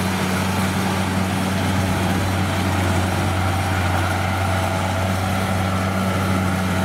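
Kubota 688 rice combine harvester, with its 68-horsepower diesel engine, running steadily under load as it cuts and threshes rice. It gives a continuous low, even engine hum.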